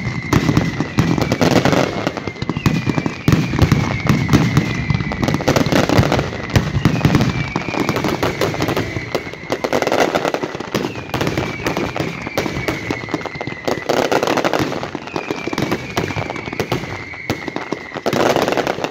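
Fireworks going off: dense crackling and popping with heavier rumbling bangs every few seconds, and a faint falling whistle that repeats about every two seconds.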